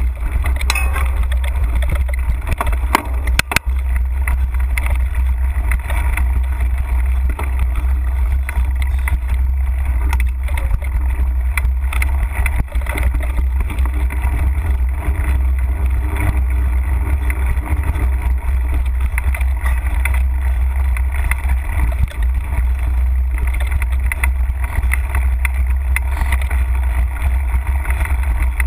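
Wind rumbling on an action camera's microphone while a mountain bike rides rough singletrack, with scattered clicks and rattles from the bike and tyres over the ground.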